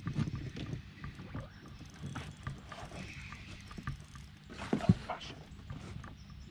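Handling noises in a small fishing boat as a hooked pike is brought alongside and netted: irregular knocks, clatters and rustles against the hull, with one loud knock about five seconds in.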